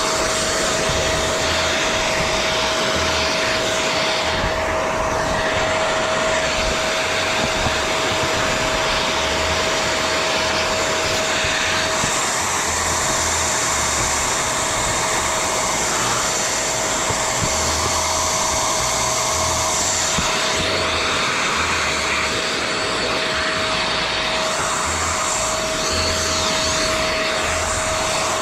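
Portable blower running steadily with a constant motor whine, its airflow hiss shifting slightly now and then, as it clears debris around the roof vent.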